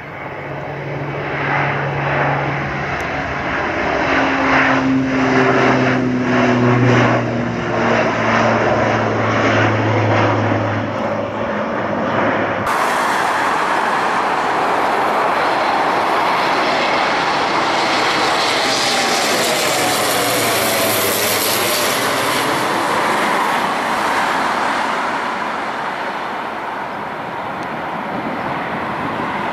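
Antonov An-140 twin turboprop running at high power, a steady propeller drone whose pitch drifts slowly lower. About halfway through it switches to a broad, even engine and propeller noise that swells and eases as the plane passes low overhead on approach.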